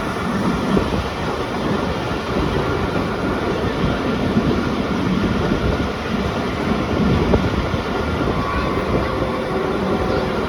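Pakistan Express passenger train running, heard from on board: a steady rumble of the coaches and wheels on the track.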